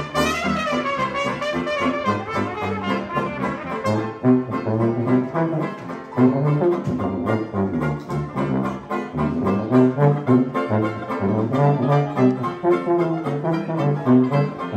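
Small 1920s-style hot jazz band playing an instrumental passage with a steady beat. A trumpet carries the lead for the first few seconds over a sousaphone bass line, then the low bass notes and the reeds come forward.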